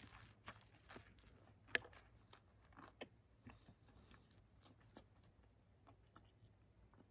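A person biting into and chewing a soft, chocolate-filled pancake. The chewing is faint, with scattered small mouth clicks; the sharpest comes a little under two seconds in.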